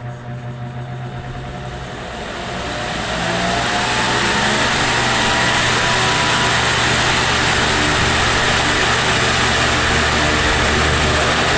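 Tron AT-60 wall fan coming up to speed: the rush of air and the motor hum rise over the first four seconds, with a faint whine gliding upward, then run steady.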